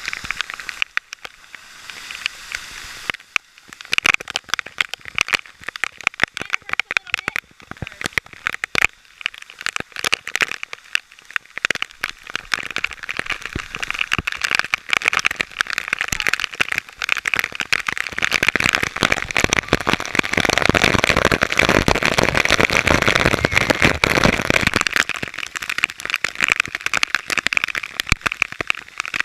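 Roar of a waterfall close by, with spray and wind hitting the microphone in a constant patter of small ticks. It swells louder and deeper from about two-thirds of the way through, then eases slightly near the end.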